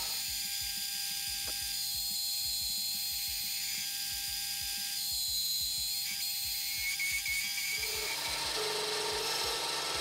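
Metal lathe turning a steel bar while a button insert cuts a radius at the shoulder, steel chips coming off the cut, with a steady high whine. The sound fills out about eight seconds in.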